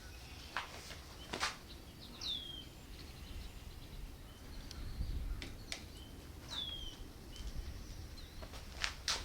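A bird calling: a short whistle sliding down in pitch, given twice and repeated about every four seconds, with a few sharp clicks and taps in between.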